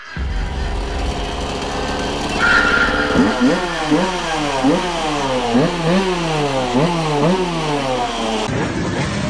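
Motorcycle engine running steadily for about three seconds, then revved up and down over and over, about seven quick revs in a row.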